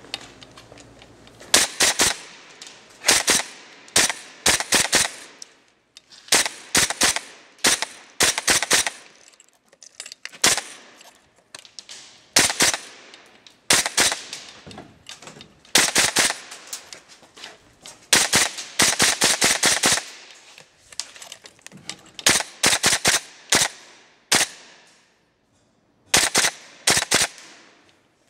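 Western Arms M4A1 CQB-R gas blowback airsoft rifle firing in about a dozen short bursts of a few rapid shots each, with short pauses between bursts.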